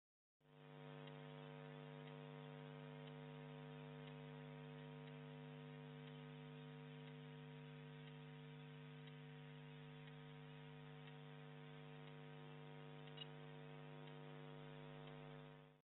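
Faint, steady electrical mains hum, a low buzz made of several unchanging tones, with a single tiny click near the end.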